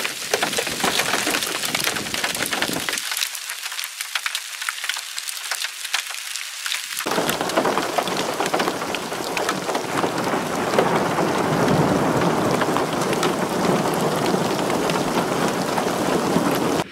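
Small hail and rain pelting wet asphalt pavement: a dense hiss of rain peppered with many sharp ticks of hailstones striking the ground. The sound is thinner between about three and seven seconds in, then fuller again.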